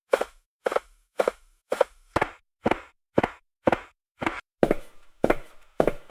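Footsteps walking on a passenger gangway, evenly paced at about two steps a second, each a sharp hard strike. From about two thirds of the way through, each step leaves a lingering ringing tail.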